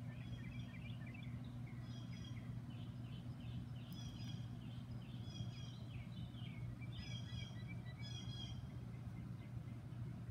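Birds singing in short, repeated chirping phrases, over a steady low hum.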